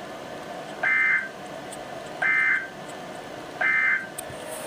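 Emergency Alert System end-of-message signal: three short, identical bursts of warbling digital data tones about a second apart, closing a NOAA Weather Radio flash flood warning. They are heard through a radio receiver's speaker over steady static hiss.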